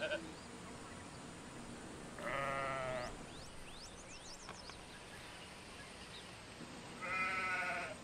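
A ram (male sheep) bleating twice, each a short wavering call under a second long: one about two seconds in and one near the end.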